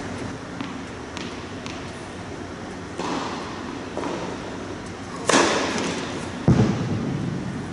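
A tennis racket strikes the ball on a serve: a loud, sharp hit that echoes through a large indoor tennis hall. A few lighter knocks lead up to it, and a dull thud follows about a second later.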